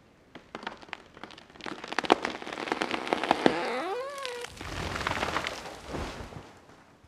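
A large cedar being felled: the hinge wood cracks and pops, slowly at first, then faster and louder. About halfway through comes a creaking groan that rises in pitch as the trunk leans over. The tree then crashes down through the branches onto the ground with a heavy low rumble, which dies away near the end.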